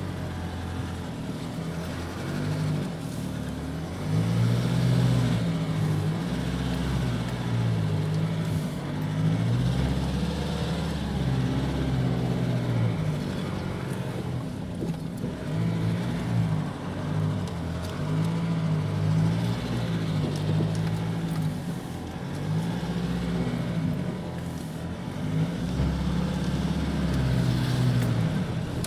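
Nissan Navara D40's 2.5 dCi four-cylinder turbodiesel engine pulling under load in four-wheel drive high range over rough ground. The revs rise and fall repeatedly, with several louder surges.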